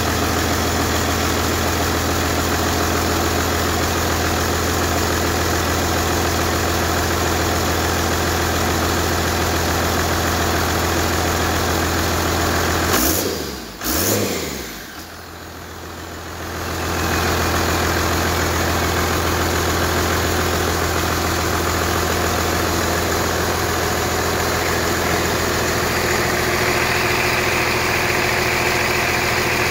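Cummins inline-six diesel engine, a takeout engine on its first test run, idling steadily. About halfway through it is briefly revved, then its speed falls away and it goes quieter for a couple of seconds before coming back up to a steady idle.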